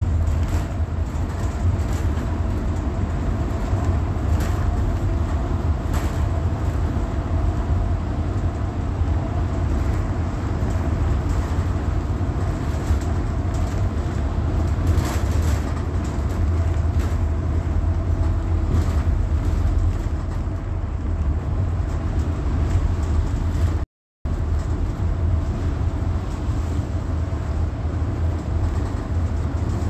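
Inside a city transit bus on the move: a steady low engine and road rumble with scattered rattles and clicks from the body and fittings. The sound cuts out for an instant near the end.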